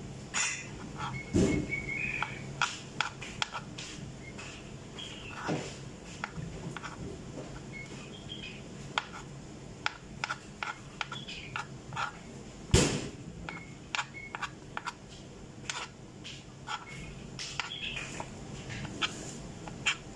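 Kitchen knife slicing boiled beetroot on a plastic cutting board: irregular light taps of the blade meeting the board, with one louder knock about two-thirds of the way through. Faint high chirps come and go in the background.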